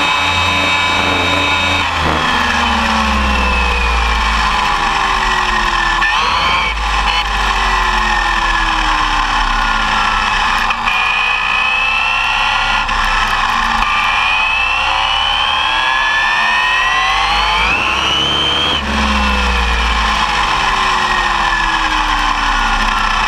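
Arrma Typhon 6S RC buggy's brushless electric motor and drivetrain whining, heard from on board, rising and falling in pitch several times as the buggy speeds up and slows on the road. A steady low rumble runs under the whine.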